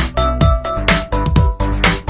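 A smartphone ringtone: an electronic dance-style track with a steady kick-drum beat about twice a second and sustained synth notes over it.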